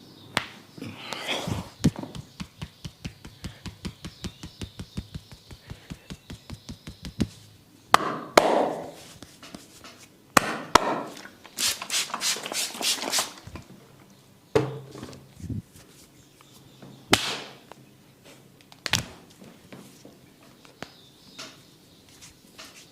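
Hands striking the body in a percussive massage: a fast, even run of light strikes, about five a second, then a few louder slaps and a second quick burst of sharper strikes, with scattered single knocks after.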